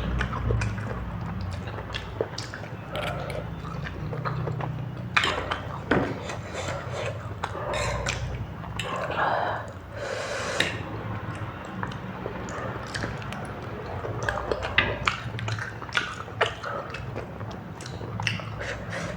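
Close-miked eating sounds: chewing, biting and wet mouth smacks of someone eating, with many short irregular clicks.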